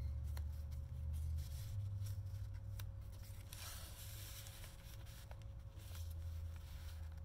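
Paper rustling and small clicks as stiff paper tags and cards are handled and slid into a paper pocket of a handmade journal, with a soft rustle about four seconds in, over a steady low hum.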